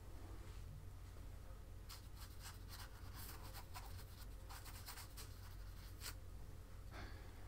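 Paintbrush bristles scratching across a canvas in several runs of quick strokes, starting about two seconds in, faint over a low steady hum.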